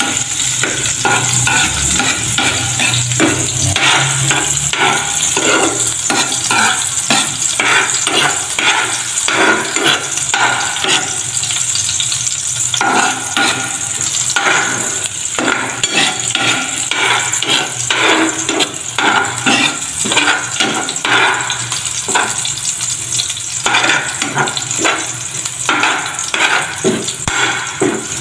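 Chopped garlic and chili sizzling in hot oil in a metal pan, with a spatula scraping and knocking against the pan as it stirs them.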